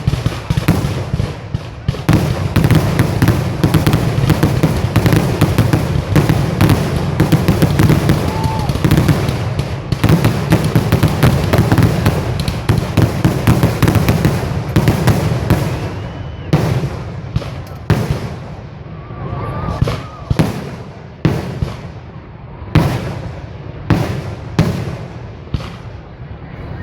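Fireworks exploding in a dense, rapid barrage of bangs that thins out after about sixteen seconds into separate bangs roughly a second apart.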